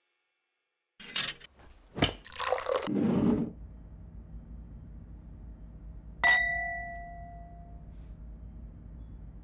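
Beer glasses clinking together once in a toast about six seconds in, with a short bright ring, over a low steady hum of room tone. Before it, after a second of silence, come a few seconds of loud rushing noise.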